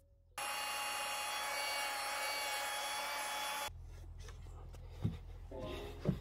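Gloved fingertip rubbing repair paint into a scuff on a car's painted side skirt: a loud, harsh rubbing noise that starts and stops abruptly after about three seconds. Then a microfibre cloth wiping the panel more quietly, with a sharp tap about five seconds in.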